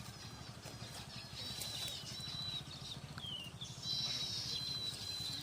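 Small birds calling in thin, high whistled notes, some held for a moment and one sliding down, over a low, evenly pulsing hum.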